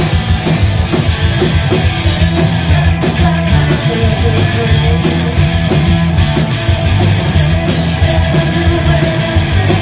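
Live rock band playing loud: electric guitars and bass guitar over a steady, driving drum beat.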